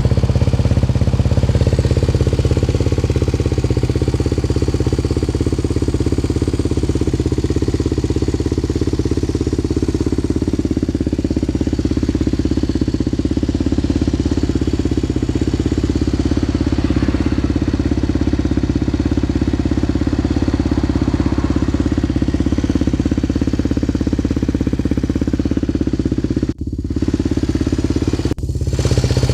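Yamaha TT250R's single-cylinder four-stroke engine running steadily through an OZ Works aftermarket silencer, at an even engine speed without revving. The sound drops out for an instant twice near the end.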